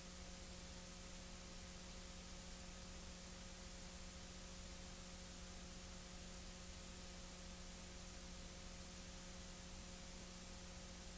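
Faint steady hiss with a low electrical hum and no other sound: the noise floor of an old recording transfer.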